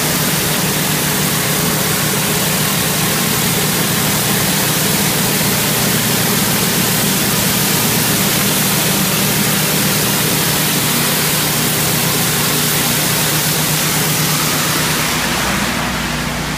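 Pressure washer running steadily, with the loud hiss of high-pressure water jetting from a rotary surface cleaner onto concrete over a steady engine hum. Near the end the spray hiss falls away while the hum goes on.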